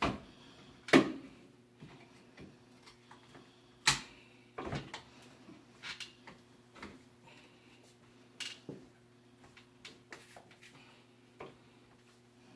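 Scattered clicks and knocks from hands working at the handlebar of a folding wheeled walker, the loudest about a second and about four seconds in, over a faint steady hum.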